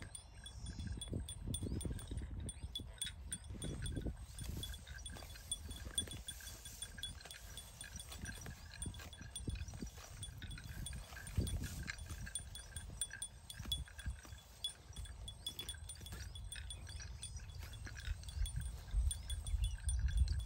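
Cattle grazing close by, tearing and munching grass in irregular crunches over a low rumble. A faint, steady high-pitched ringing runs underneath throughout.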